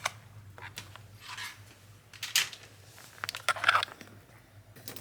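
Computer keyboard and mouse being handled and set up: scattered rustles, scuffs and light clicks, over a faint steady low hum.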